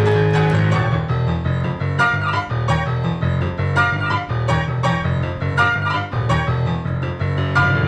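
Digital piano played solo: quick, evenly repeated chords in the right hand over a strong, sustained left-hand bass line, the instrumental close of the song.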